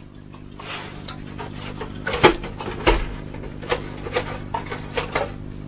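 Sharp plastic clicks and knocks from the Xbox 360's plastic outer case half as it is worked free of its clips and lifted off the console, about seven separate clicks starting about two seconds in.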